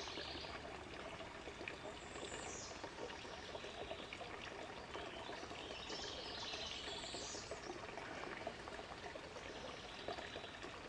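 Water trickling and pouring steadily into a garden pond. A bird calls a few times, high-pitched, near the start and again in the middle.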